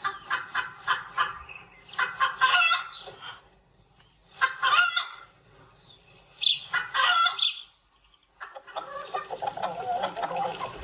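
Recorded chicken sounds: a hen clucking rapidly, then several longer cackling calls, and near the end many small chick peeps.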